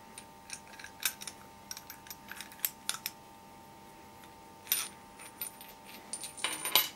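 Steel parts of a hydraulic steering valve, its spool, sleeve and gear-shaped rotor, clicking and clinking as they are handled and knocked together, with a louder clatter near the end.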